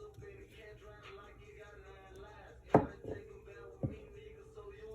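Two sharp clicks, a loud one and then a lighter one about a second later, of a RedBeam gun light being handled and fitted onto a handgun's slide rail.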